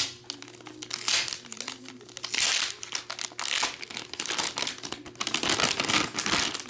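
Gold metallic foil card-pack wrapper crinkling loudly in irregular bursts as hands pull it open and spread it flat.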